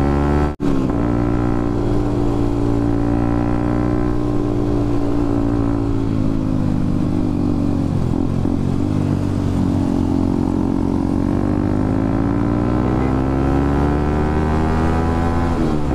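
Motorcycle engine running under way, its pitch sinking over several seconds and then climbing again as it picks up revs. The sound cuts out for an instant about half a second in.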